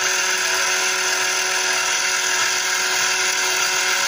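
Pelamatic Robito Vaina electric bean and pea sheller running steadily, its small motor and rollers giving a constant high whine.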